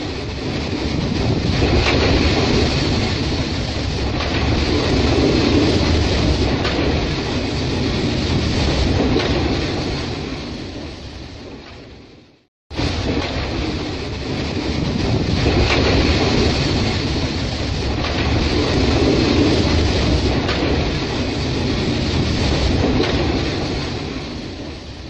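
Freight train of loaded coal wagons rolling past with a steady rushing noise and wheel clatter, as overhead nozzles spray water across the coal to keep the dust down. The sound fades out about halfway through, then starts again.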